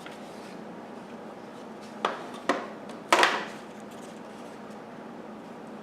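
Three sharp clacks of vacuum parts being handled, about half a second apart, the third the loudest, over a steady low room hum.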